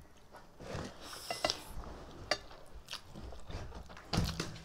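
A person eating instant noodles: chewing and slurping, with a few sharp small clicks and a louder slurp about four seconds in.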